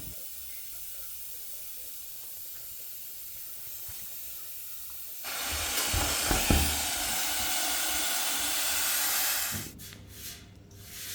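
Trapped air hissing out of a newly filled vertical radiator's bleed valve. The hiss is steady and high at first. About five seconds in it turns suddenly louder and fuller, with a couple of dull knocks, then drops back near the end.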